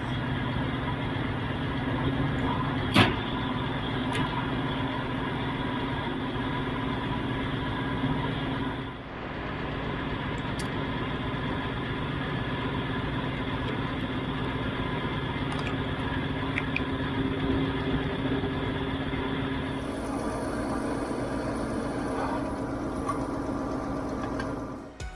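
Diesel farm engine idling steadily, with a sharp click about three seconds in.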